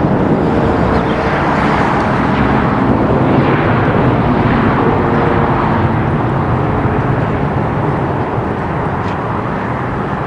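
Jet airliner passing, its engines making a loud, steady rush of noise with a few faint tones that glide slightly down in pitch.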